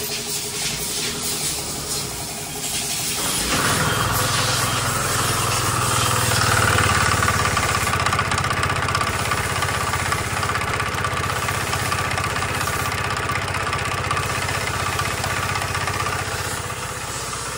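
Kymco Racing 150 scooter engine catching about three seconds in, then idling steadily. It runs briefly louder a few seconds after it catches.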